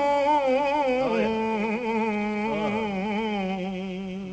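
Long held vocal notes of an Urdu naat, with a slight waver in pitch. The pitch steps lower about a second in, and the sound fades near the end.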